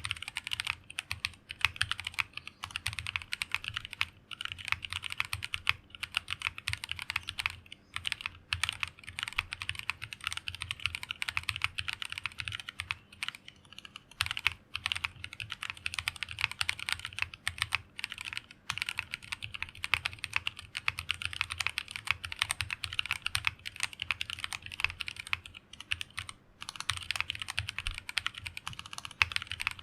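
Fast, continuous typing on a mechanical keyboard with stock Tropical linear switches (polycarbonate top, nylon bottom housing) in a plateless build. The keystrokes come as a dense run of clacks with a few brief pauses.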